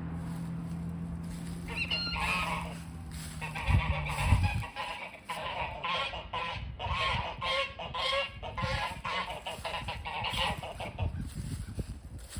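Geese honking repeatedly, their calls coming in quick runs from about two seconds in. Under the first few seconds a low steady hum runs, ending with a low thump about four seconds in.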